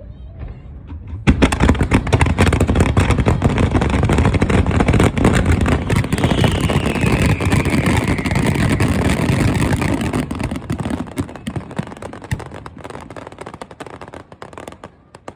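Fireworks going off in a dense barrage: rapid overlapping bangs and crackling over a heavy rumble, starting about a second in. A whistle falls in pitch in the middle, and the barrage thins out over the last few seconds.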